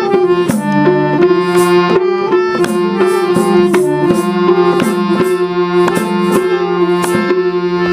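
Instrumental interlude of Nepali folk-song music: held melody notes over a steady rhythm of hand-drum strokes.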